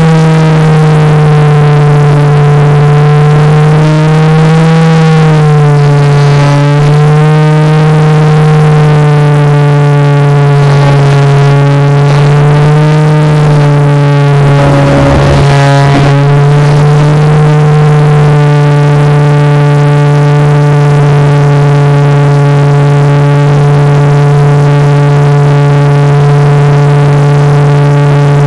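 Model airplane motor and propeller droning at close range with a steady pitch that wavers slightly with throttle. About halfway through the pitch dips and the sound turns briefly rougher, then it settles back to an even drone.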